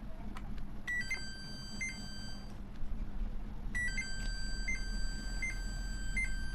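Samsung top-load washing machine control board's buzzer beeping: short high beeps repeating about every three-quarters of a second over a steady high tone, with a pause of about a second midway. It is an error alert, the board now showing only a door error.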